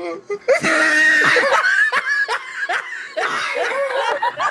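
A person laughing loudly, breathy and broken into quick short pulses of voice, loudest in the first second and a half.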